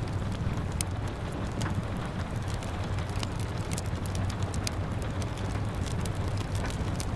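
Wood fire crackling with frequent sharp pops, over a steady rush of rain.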